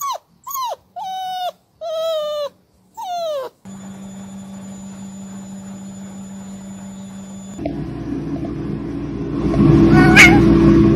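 Dalmatian puppy giving five short whining cries, each falling in pitch. Then comes a steady machine hum from a washing machine. Last comes loud rustling and crinkling of a paper bag as a cat moves inside it, growing louder toward the end.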